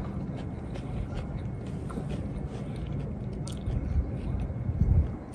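A person chewing a mouthful of food, with a few louder chomps near the end.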